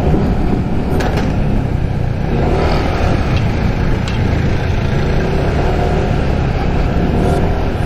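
Motor scooter engine running steadily while riding, picked up by a helmet-mounted mic along with road and wind noise.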